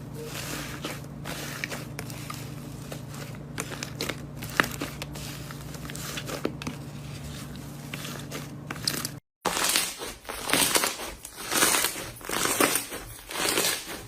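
Crunchy slime being squeezed and kneaded by hand, crackling and popping. At first the crackles are soft over a steady low hum. After a break about nine seconds in they grow louder, coming in repeated squeezes roughly once a second.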